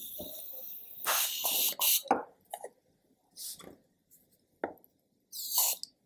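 Aerosol can of insulating spray hissing in several short bursts as it coats a circuit board. The loudest burst comes about a second in. A whistling tone is heard at the start, and a falling whistle with the last burst near the end.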